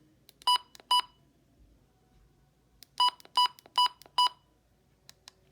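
Weather radio keypad beeps as its buttons are pressed: two short electronic beeps about half a second apart, then four more in quick succession, with faint button clicks between.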